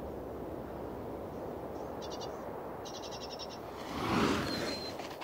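Prairie falcon stooping low over the rock: a loud rushing whoosh of air swells and fades about four seconds in, over a steady wind hiss. Before it come two short, rapid, high-pitched chipping trills, about two and three seconds in.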